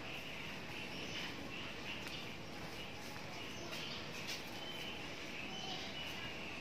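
Steady outdoor background of birds chirping, with a few short chirps standing out, and faint light clicks from hands working in a plastic basin.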